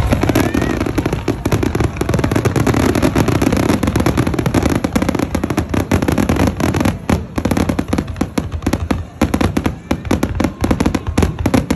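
Aerial fireworks display: a rapid barrage of bangs and crackling bursts, so dense at first that they run together, then thinning to more separate booms in the last few seconds.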